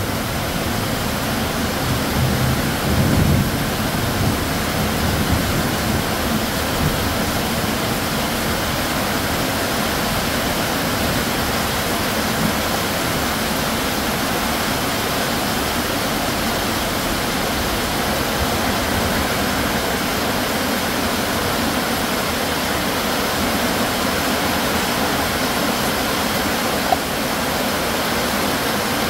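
Torrential rain pouring down steadily in a thunderstorm downpour, with a gusty low rumble of wind in the first several seconds. A single short click sounds near the end.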